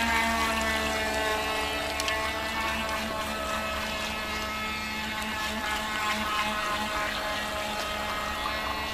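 Electric RC racing boat (Megatech H2O Racer monohull with ProBoat 9-inch electronics on a 2S LiPo) running at speed: a steady electric motor whine.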